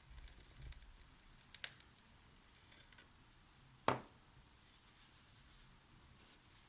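Kinetic sand being handled: faint soft crunching and crumbling, with a light tap about one and a half seconds in and a sharper knock about four seconds in.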